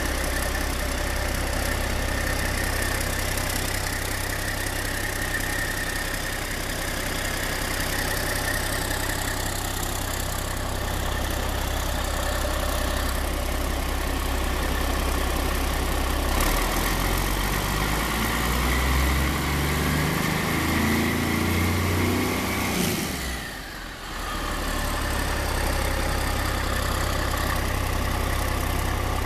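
Caterpillar C12 inline-six diesel engine idling steadily, then revved for about six seconds a little past halfway, its pitch climbing, before the throttle is let go and it drops back to a steady idle.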